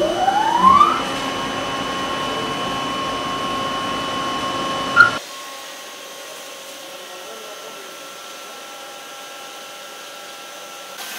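Foam production line machinery running: a machine whine rises in pitch over about a second and then holds steady, with a sharp click about five seconds in. It then changes abruptly to a quieter, steady machine hum.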